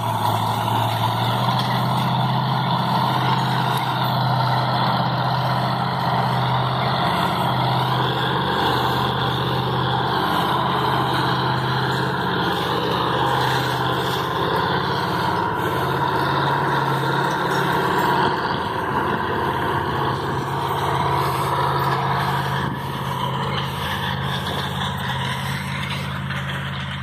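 Farm tractor's diesel engine running steadily under load as it pulls a field cultivator through tilled soil.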